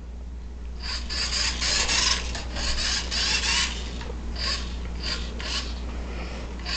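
Toy remote-control car's small electric motor and plastic gears whirring in many short bursts as the throttle is pulsed.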